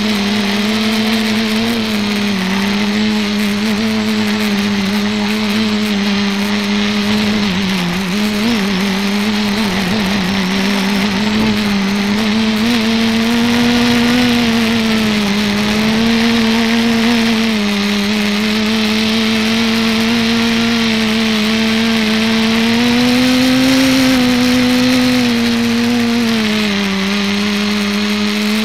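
Electric motors and propellers of an ETFD2 flying-disc multicopter running steadily, heard from its onboard camera: a loud, even hum whose pitch drifts slightly up and down with throttle, over a hiss of rushing air.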